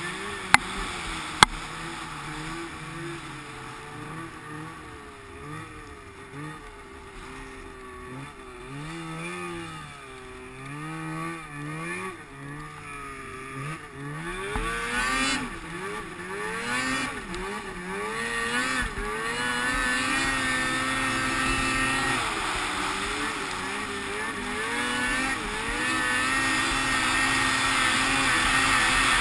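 Polaris IQ 600 snowmobile's two-stroke engine running while riding, its pitch rising and falling with the throttle for the first half, then held higher and louder for the second half. Two sharp clicks come about half a second and a second and a half in.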